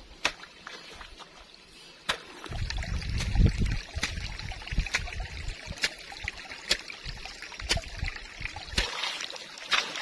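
A hoe chopping into wet, muddy ground, striking about once a second, with water trickling and splashing around it. A low rumble swells briefly about three seconds in.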